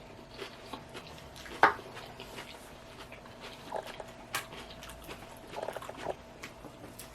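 Close-up mouth sounds of eating salad: irregular wet smacks and crunchy chewing clicks, the sharpest a little over a second and a half in, over a faint steady hum.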